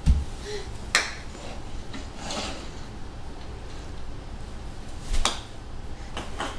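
A few sharp knocks and clacks of toy play-kitchen things being handled: one at the start, one about a second in, a louder one a little after five seconds, and two lighter ones near the end.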